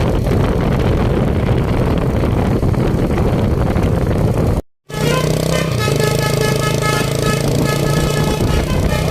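Bus engine and road noise, then, after a brief cut, a Basuri telolet horn playing a short tune of stepped, pitched notes over a steady low tone.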